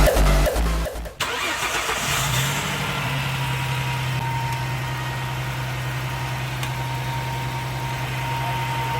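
Ford Transit's 3.7 L V6 engine idling steadily after a tune-up with new spark plugs and ignition coils, its speed settling slightly lower in the first couple of seconds. The tail of a music track with a beat cuts off about a second in.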